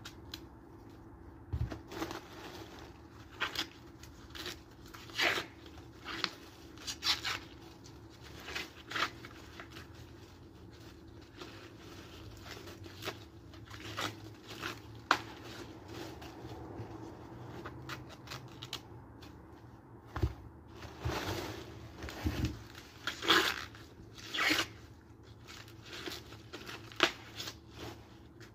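Ears of fresh corn being husked by hand: green husks ripped off the cobs in short, irregular tearing and rustling strokes, over a faint steady hum.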